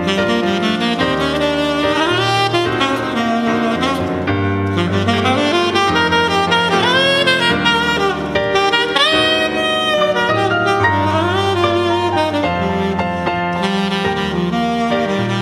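Tenor saxophone playing a flowing jazz melody with pitch scoops and quick runs, over electric keyboard chords and sustained low bass notes.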